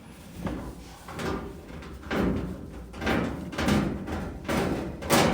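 Cordless drill backing screws out of a dryer's sheet-metal back panel, running in several short bursts with clatter from handling the panel and screws.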